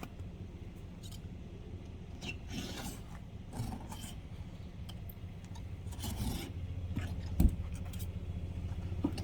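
Scraping and rubbing of tools working around a car's windshield during glass removal, in short strokes, over the steady hum of the car's engine idling. A single loud thump about seven and a half seconds in.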